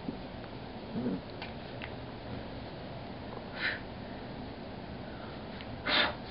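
A pet sniffing close by: three short sniffs over a steady background hiss, the loudest just before the end.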